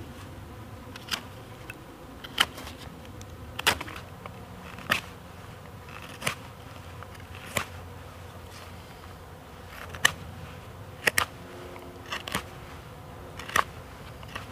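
Knife carving a hazel stick, beveling its edges: short, sharp slicing cuts that come about once a second or a little slower, over a steady low hum.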